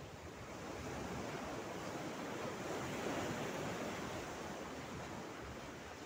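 Small sea waves washing over rocks and a pebble shore, a steady wash that swells to a peak about halfway through and then eases off.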